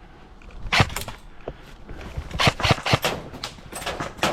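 Airsoft electric guns firing: a short burst about a second in, then a quicker string of sharp pops midway, and a few more pops near the end.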